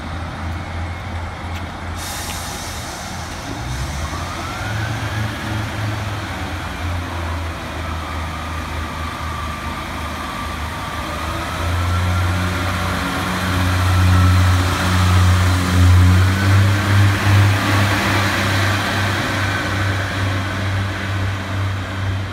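Northern Class 142 Pacer diesel railcar running, a low engine drone that grows louder and pulses about halfway through as the unit draws past. A thin, wavering high whine rides over the drone.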